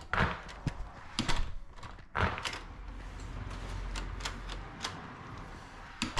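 A newly installed Schlage front-door lever handle being worked to check it operates the latch: a run of irregular mechanical clicks and clacks from the latch and lever, with a few louder knocks in the first half.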